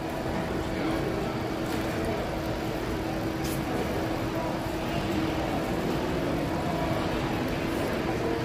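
Steady background din of a busy exhibition hall, with a constant low hum and faint far-off chatter.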